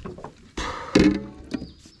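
A hooked smallmouth bass thrashing and splashing at the side of an aluminium boat as it is lifted out of the water, one short burst of splashing about half a second in.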